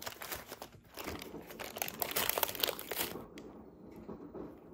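Brown paper bakery wrapping crinkling as hands unfold it. The crackling stops about three seconds in.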